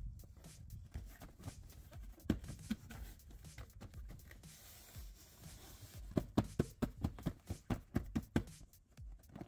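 Hands pressing and patting a moulded seat back cover onto the back of a car seat to fasten its Velcro: scattered taps and rubbing, then a quick run of knocks, about four or five a second, starting about six seconds in.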